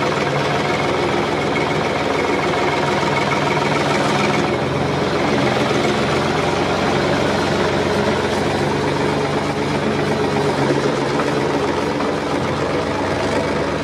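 An engine running steadily, a continuous machine hum with several steady tones. The high end shifts slightly about four and a half seconds in.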